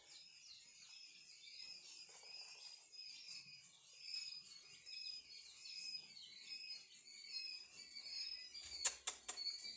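A brood of young desi and Kadaknath chicks peeping continuously, many short high chirps overlapping. A few sharp clicks come near the end.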